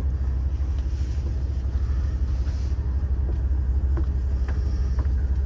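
Steady low rumble inside the passenger car of a diesel limited-express train held at a stop, its engine idling, with a few faint knocks.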